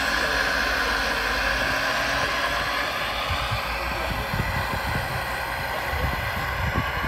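Scale radio-controlled construction models working: a steady mechanical hum and whine, with low knocks and thumps from about four seconds in as the RC excavator swings its boom and bucket.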